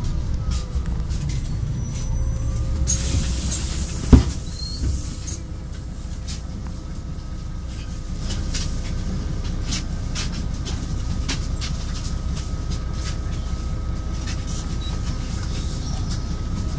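Solaris Urbino 12 city bus heard from inside near the front doors: a steady low engine rumble, with a hiss about three seconds in and one sharp, loud knock just after four seconds. After that the bus runs on more quietly with a faint steady whine.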